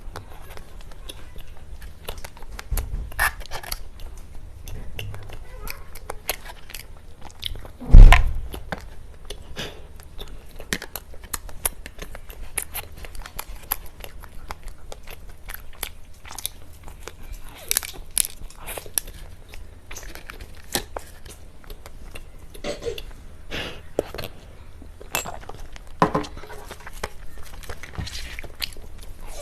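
Close-up mouth sounds of someone eating cake: wet chewing, bites and smacking, with many small clicks. One loud low thump comes about eight seconds in.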